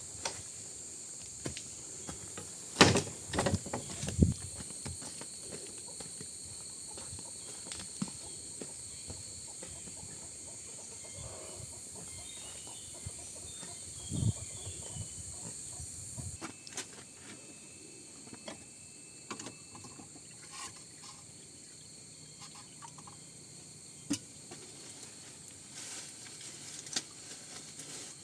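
Insects trilling steadily in the background under scattered knocks and rustles. The loudest is a cluster of thumps about three to four seconds in, with another about fourteen seconds in.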